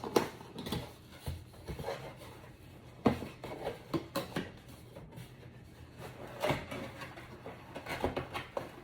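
Cardboard box and packaging being handled and opened: an irregular run of scrapes, rustles and knocks, with sharper knocks near the start and about three seconds in.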